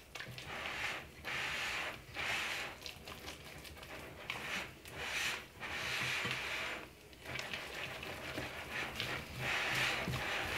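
Spatula stirring and scraping soft cookie dough in a glass mixing bowl, working in the added milk: a run of rhythmic swishing strokes, roughly one a second.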